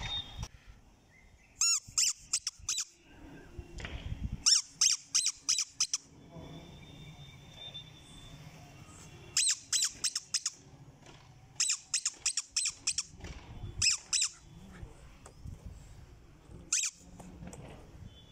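Squeaky rubber toy ball squeezed by hand, giving quick runs of three to five high squeaks, repeated several times with short pauses between.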